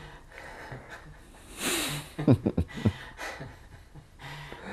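A man laughing: a breathy snort of a laugh about a second and a half in, then a quick run of short laughs.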